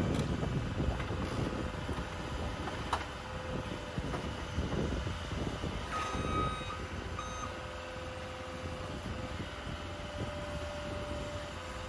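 Heavy equipment diesel engine running steadily, with its reversing alarm beeping, two beeps clearest about halfway through.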